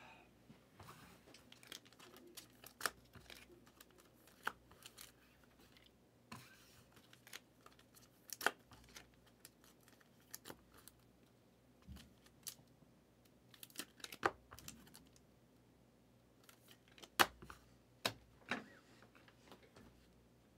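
Trading cards and their packaging being handled at close range: irregular light clicks, taps and short rustles as cards slide and are flipped over one another.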